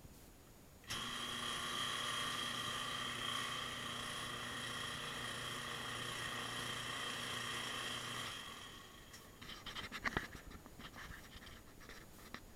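Faulty washing machine running with a steady whine over a low hum, starting suddenly about a second in and dying away after about seven seconds: the noise of a machine that agitates slowly and won't spin. A scatter of clicks and crackles follows near the end.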